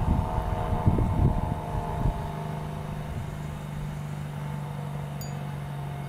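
ACA Cyclone 125 outdoor warning siren sounding a steady tone, with gusty wind rumbling on the microphone in the first two seconds.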